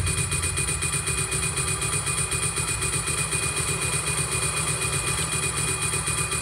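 Industrial noise from a Korg Volca Sample sampler run through a Boss ODB-3 bass overdrive, TC Electronic Flashback delay and Hall of Fame reverb: a dense, steady, rapidly fluttering drone with high whistling tones. The heavy low end drops away right at the start.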